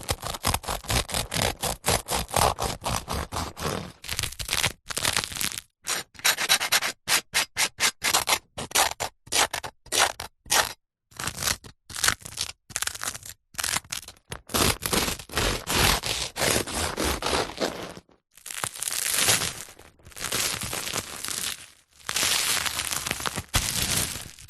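A knife sawing through a crusty loaf of bread: runs of quick, crunchy strokes broken by short pauses, with longer continuous sawing strokes in the later part.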